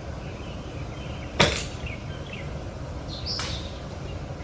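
A golf ball struck with a 52-degree wedge on a short swing without wrist hinge: one sharp, crisp impact about a second and a half in. A fainter click follows near the end.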